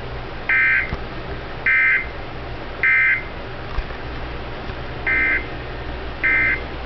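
Emergency Alert System end-of-message data bursts: short, harsh, buzzy squawks marking the end of the alert. Three come about a second apart, then after a longer pause two more.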